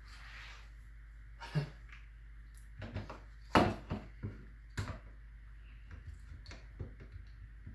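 Scattered clicks and knocks of hands handling door-lock hardware, about ten in all and irregular, the loudest about three and a half seconds in.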